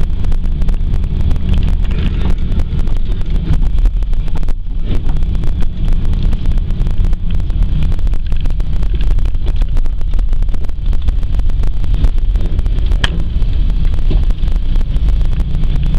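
Van driving over a rough, bumpy road: a steady low rumble with wind buffeting the microphone and many small rattles and knocks, plus one sharp click about three seconds from the end.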